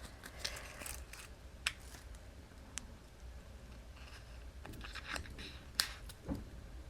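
Quiet handling of cardstock pieces during paper-craft assembly: scattered light clicks, taps and short paper rustles, with one sharper click near the end.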